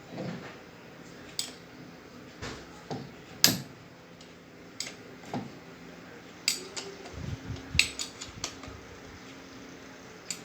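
Irregular metallic clinks and taps of tools and parts being handled while a car starter motor is dismantled, the sharpest clink about three and a half seconds in.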